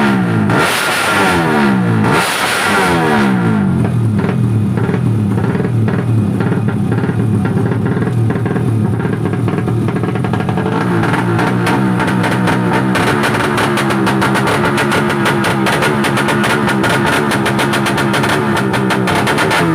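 Four-stroke underbone drag bike engine accelerating hard, its pitch climbing and dropping through several quick upshifts in the first few seconds, mixed with rock music with guitar and drums that carries on throughout.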